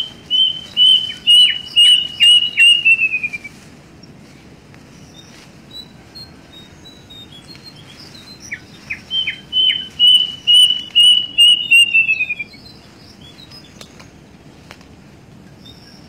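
Plaintive cuckoo (kedasih) singing two runs of clear whistled notes, each holding its pitch and then speeding up and sliding down at the end.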